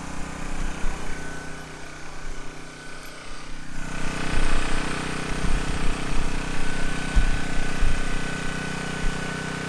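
Power Stroke 3200 PSI gas pressure washer running steadily. About four seconds in, a louder hiss of the water spray joins in and keeps on.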